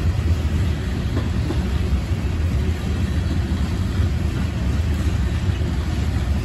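Freight train hopper cars rolling past on the rails: a steady, deep rumble of steel wheels on track.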